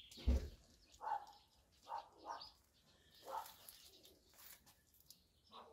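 A dog barking in about six short, faint, spaced barks. A single low thump comes just after the start.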